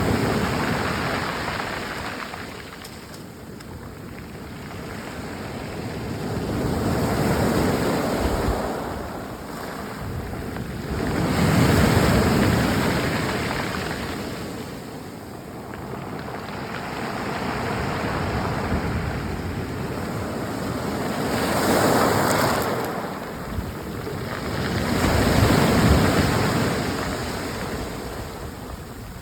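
Waves washing up and drawing back over a beach of wave-polished rocks, the stones rattling in a pattering sound as the water recedes. The surge swells and fades about every four to five seconds.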